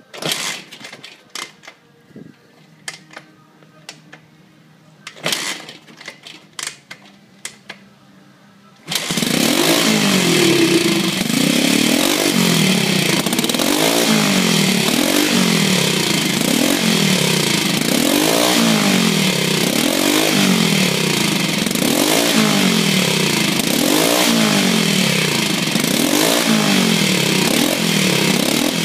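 Scattered clicks and knocks, then about nine seconds in a 1960s Ducati 250 single-cylinder motorcycle engine, fed by a Wal Phillips fuel injector on a 3D-printed manifold, starts and runs loud, its revs rising and falling about once every second and a half as the throttle is blipped.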